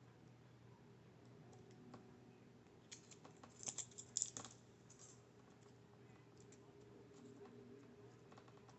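Faint crinkling and clicking of the thin foil shield being peeled off the twisted pairs of a shielded Cat 6a cable, with a short cluster of sharper crinkles about three to four and a half seconds in.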